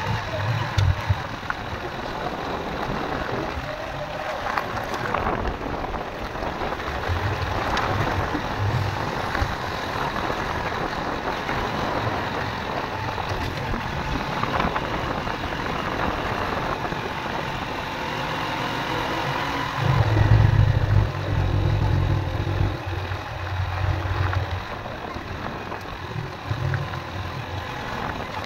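Motorcycle running along a rough dirt and gravel road, its engine under a steady rush of riding noise, with a louder low rumble for a few seconds about twenty seconds in.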